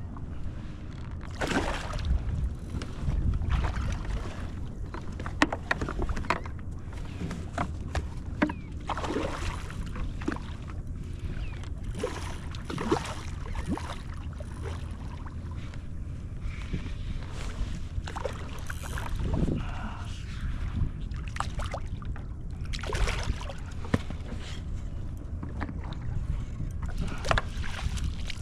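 Water lapping and splashing around a kayak, with a steady low rumble and many small irregular knocks and splashes.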